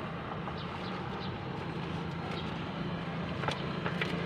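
Steady low hum of a vehicle engine over road noise, with a couple of faint clicks near the end.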